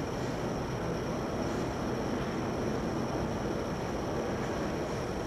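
Maxon tuck-away lift gate's hydraulic power unit running steadily while the control button is held and the folded platform is lowered.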